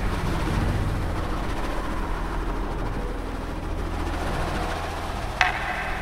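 Low, steady rumbling drone from a dark, ambient soundtrack. About five and a half seconds in comes one sharp metallic hit that keeps ringing.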